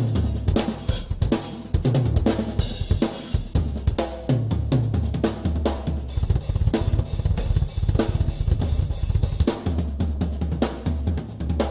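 Instrumental rock music with a busy drum kit, snare, bass drum, cymbals and hi-hat, playing fast over a stepping bass line.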